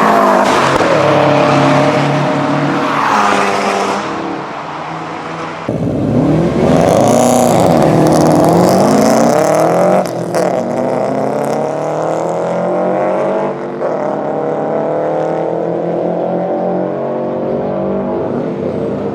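Subaru Impreza flat-four boxer engines in a run of short clips, revving and accelerating with the uneven boxer rumble that comes from unequal-length headers. The engine pitch climbs and falls, most strongly between about six and ten seconds in, and the sound changes abruptly at each cut.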